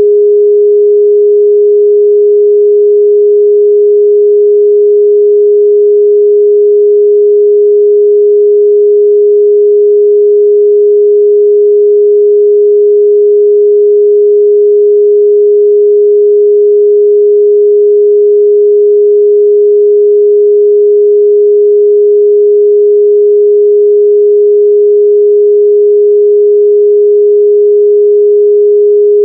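A steady, loud 414 Hz pure sine test tone, held at one unchanging pitch, a mid-range tone for checking speaker and headphone response.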